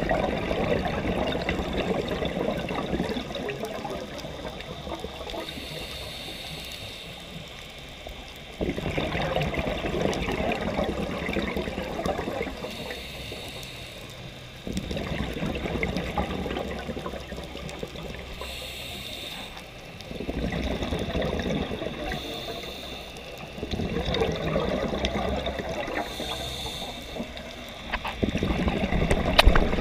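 Scuba regulator breathing underwater: bubbling exhalations of a few seconds each, about every five to six seconds, with a short hiss of inhalation in the gaps between them.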